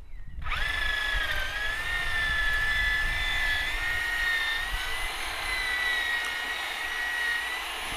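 Electric power tool motor running with a steady high-pitched whine, coming in suddenly about half a second in.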